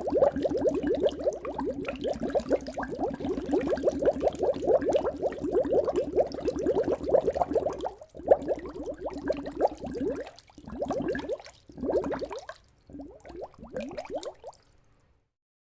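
Liquid being poured, bubbling and gurgling as a fast run of quick rising bubble sounds. It runs unbroken for about eight seconds, then comes in four shorter spurts and stops near the end.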